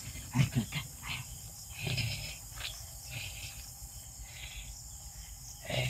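Crickets and other night insects chirping steadily, with a few brief soft rustles or knocks near the start and about two seconds in.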